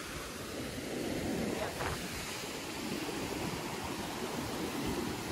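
Rough sea surf breaking and washing over rocks, a steady rushing noise.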